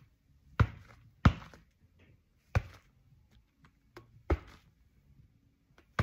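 A football slapped into the latex palms of Reusch Attrakt Gold X Evolution Cut goalkeeper gloves, making about six sharp thuds at irregular intervals, the loudest two close together near the start.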